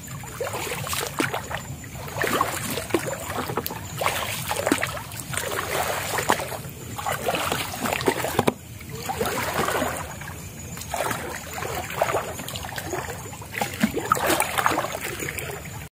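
Legs wading through shallow water, splashing and sloshing in a swell about once a second with each step.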